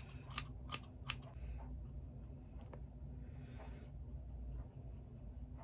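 Scissors snipping through hair, about three quick cuts in the first second, followed by soft rustling.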